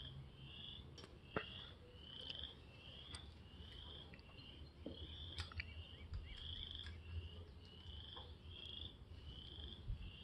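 Faint, regular high-pitched animal chirps, about three every two seconds, each rising slightly in pitch, over a low hum. A few light clicks from hand work on the motorcycle's cylinder head, the loudest about a second and a half in.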